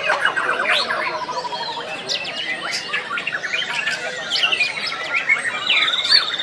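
White-rumped shamas (murai batu) singing, a dense tangle of overlapping whistles, rapid trills and harsher notes, with a fast rattling trill in the first two seconds and another just before the end.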